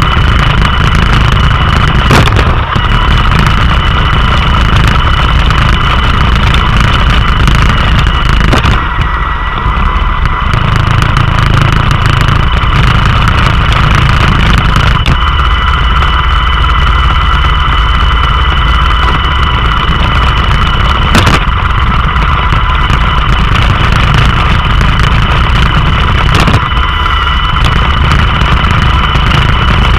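Roomba robot vacuum running, its brush, fan and drive motors giving a loud steady hum with a high whine, picked up by a camera mounted on the robot. A few sharp knocks break in along the way.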